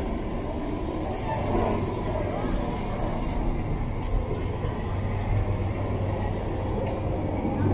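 Busy street ambience with a vehicle engine running close by; its low, steady hum grows louder about five seconds in.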